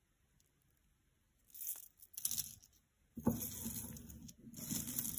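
Metal link jewelry being pulled and dragged across a cloth-covered table: rustling and scraping of silver chain links. Two short bursts start about a second and a half in, then it runs on steadily from about three seconds in.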